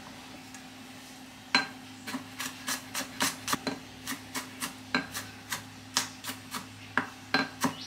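Chef's knife chopping garlic cloves on a bamboo cutting board: a run of quick, uneven knocks of the blade on the board, about two to three a second, starting about a second and a half in. A low steady hum sits underneath.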